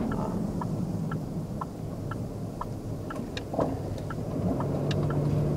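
Car cabin noise while driving: a steady low road-and-engine rumble with a light ticking about twice a second, and the engine's hum coming up about four seconds in.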